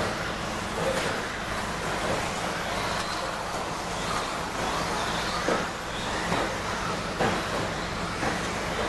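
1/10 electric stadium trucks with 13.5-turn brushless motors racing on a dirt track: motors whining up and down in pitch as they speed up and slow down, tyres scrabbling on the dirt, with several sharp thumps.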